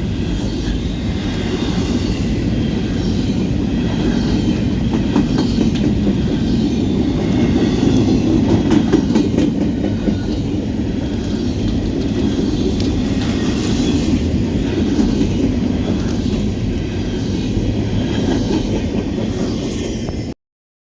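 Norfolk Southern freight cars rolling past: a steady, loud wheel-and-rail rumble with irregular clicks of wheels over rail joints. The sound cuts off abruptly near the end.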